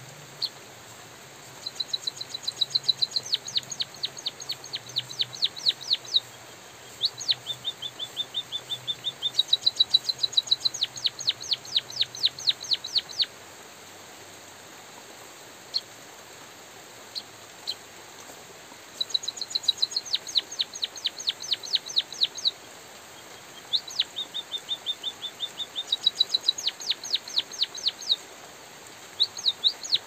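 White-headed munia singing: four bouts of rapid, high chirps, each lasting a few seconds, with a few single chirps between bouts. A steady hiss of light drizzle runs underneath.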